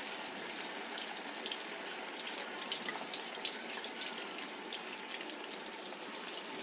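Hot oil sizzling steadily with many small crackles and pops as batter-coated chicken lollipops deep-fry in a wok.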